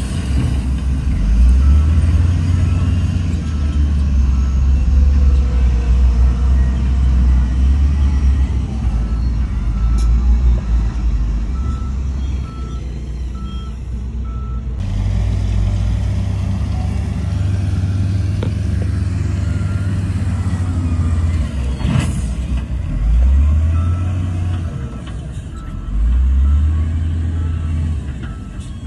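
Heavy diesel earthmoving machinery working: a deep engine drone that swells and eases as the machines push and travel. A reversing alarm beeps about twice a second for a few seconds, twice.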